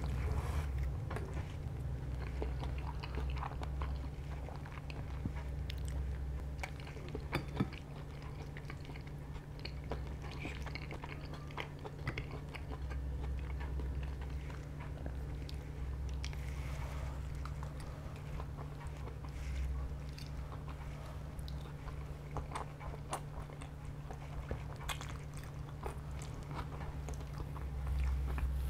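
A person chewing and slurping spaghetti close to the microphone: wet mouth sounds and occasional light clicks. A steady low hum runs underneath.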